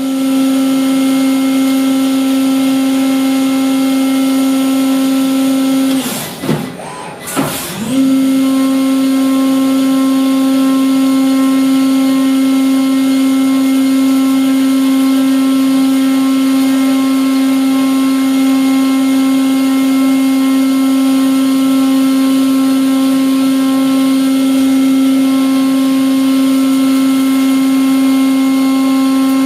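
Brother Speedio S700X1 CNC mill's spindle turning at 16,000 rpm, a steady hum with a stack of overtones over the hiss of coolant spray, as a 3/16 in two-flute carbide corner-rounding end mill cuts. About six seconds in the hum drops out for about two seconds, wavering down and up in pitch, then resumes.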